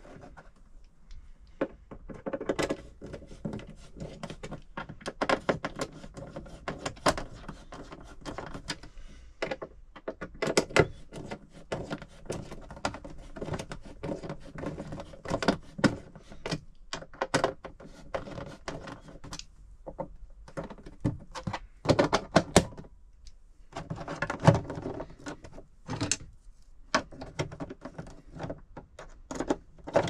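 Hands refitting plastic socket fittings and their cover plates into a caravan's plastic wall trim: irregular clicks, knocks and snaps of plastic parts being pressed into place, with handling rustle between them.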